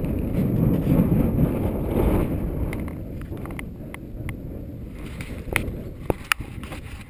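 Wind buffeting the camera microphone as a low rumble, heavier in the first few seconds and then easing. Several sharp clicks and knocks from the camera being handled come in the second half.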